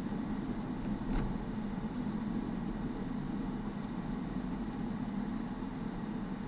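Steady engine and tyre noise of a car driving on a city street, heard from inside the cabin, with a brief click about a second in.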